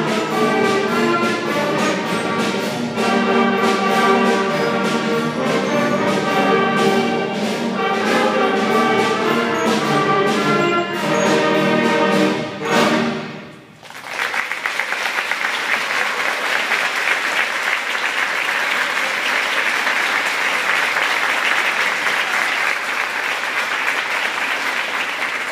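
Middle school cadet concert band, brass and woodwinds, playing a march-like passage that ends on a final chord about 13 seconds in. Audience applause follows for the rest of the time.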